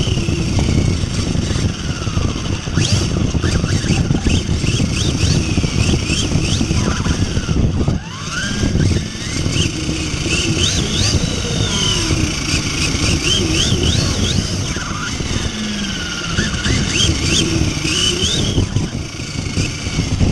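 Large-scale RC truck driving, heard from a camera mounted on its chassis: the motor's pitch rises and falls again and again with the throttle over a steady rough rumble from the running gear, with a brief lull about eight seconds in.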